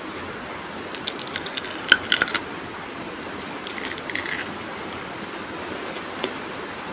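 Crunchy bites and chewing of a crisp raw green vegetable over a steady hiss. There is a quick run of sharp crunches from about one to two and a half seconds in, softer crunching around four seconds, and a single crack near the end.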